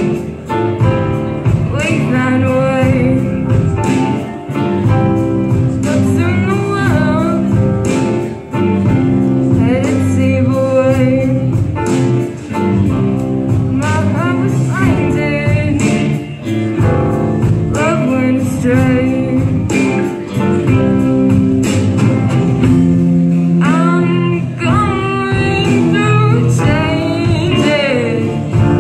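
Live rock band playing: a singer over electric guitars, drums and keyboard, with a steady drumbeat.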